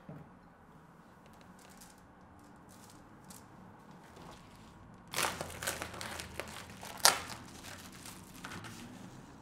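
A metallic foil bubble mailer crinkling as it is handled and opened, starting about five seconds in, with one sharp, loud crackle about two seconds later.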